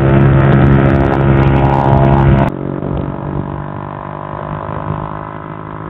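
Honda Pridor's single-cylinder four-stroke engine running at high revs near top speed, with wind rush. About two and a half seconds in it cuts abruptly to a quieter, steady engine note.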